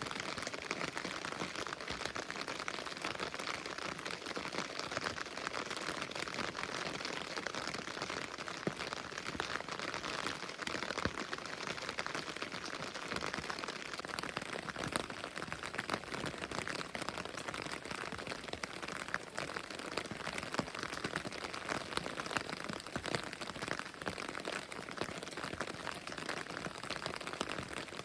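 Steady rain falling, with many small drop impacts pattering through it.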